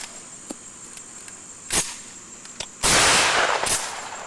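A shotgun firing once, nearly three seconds in, as one loud blast with a tail lasting under a second. A sharp click comes about a second before it.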